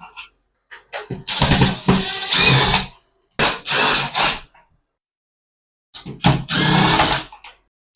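Cordless power drill run in three short bursts of a second or two each, with pauses between, as fittings are driven out of a shower door frame.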